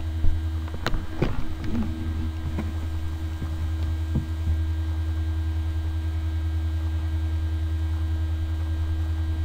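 Steady electrical mains hum on the recording, with a faint steady higher tone over it and a single click about a second in.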